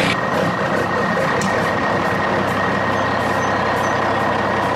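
Truck engine running steadily, an even rumbling noise with a faint steady high tone over it.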